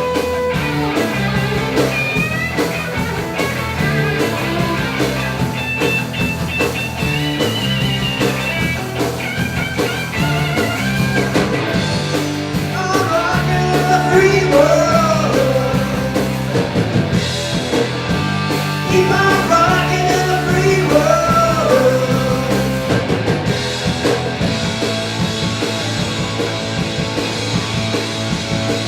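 A rock band playing: a singer over electric guitar and a steady, stepping bass line, with the voice most prominent in the middle of the stretch.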